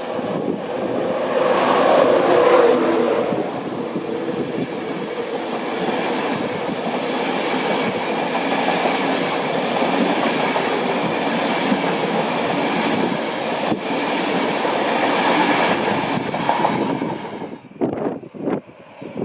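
A train passing at speed without stopping. A pitch drop about two seconds in marks the front going by, then a long steady rumble of wheels on the rails follows, with some clickety-clack. The sound falls away sharply a couple of seconds before the end.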